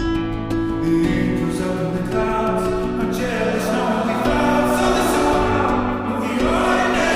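Background pop song with sung vocals and a steady beat.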